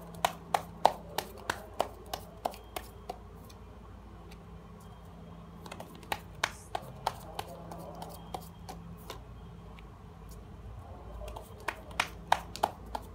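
Tarot cards being handled, flipped and laid down on a table: groups of sharp clicks and snaps in the first few seconds, again about six seconds in and near the end, over a low steady hum.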